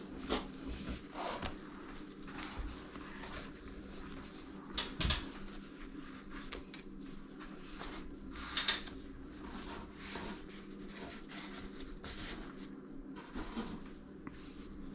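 Handling noises of a neoprene case holding a folding cutting board and fillet knife, worked over an open cardboard box: scattered light rustles and soft knocks, the clearest about five seconds in and near nine seconds, over a faint steady hum.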